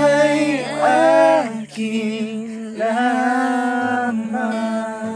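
Voices singing long held notes that slide and waver in pitch, with no clear words.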